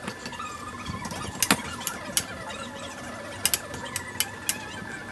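Sharp metallic clicks and squeaks as a steel bicycle frame and a bottom bracket thread tap are worked, scattered irregularly with a quick cluster of three about three and a half seconds in.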